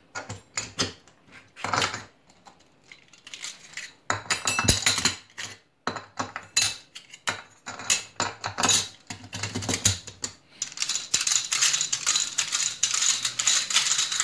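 Thin metal separator discs of a Motor Sich 100 cream separator's drum clinking against one another as they are taken from a stack and fitted one by one onto the drum's cone. The clinks come singly at first, then as a dense run of rapid clinking in the last few seconds.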